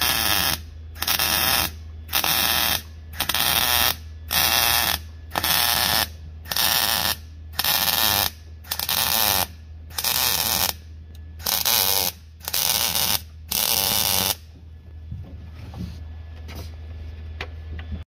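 Welding arc firing in short bursts, about one a second and thirteen in all, as a steel roll bar's mounting plate is stitch-welded to the car's floor; a steady low hum runs underneath. The bursts stop about three-quarters of the way through.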